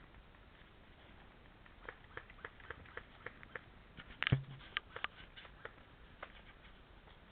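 A series of short, sharp clicks, roughly three a second, with one louder knock about four seconds in.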